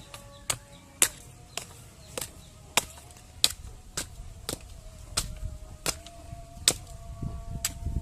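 Failed incubator eggs being smashed one after another: sharp cracks about two a second, at a steady pace.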